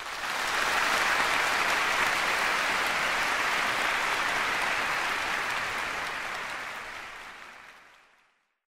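Audience applauding steadily, then fading out over the last couple of seconds.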